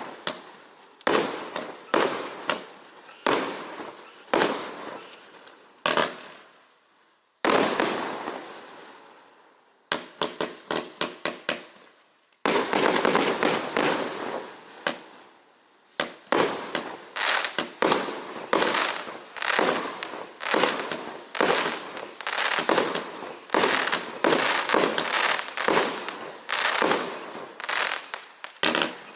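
A 192-shot fireworks cake firing in rapid volleys: sharp reports, each followed by a fading crackle. A single bigger report comes about seven seconds in with a long fading tail. A quick run of about eight shots follows near ten seconds, then almost unbroken rapid firing.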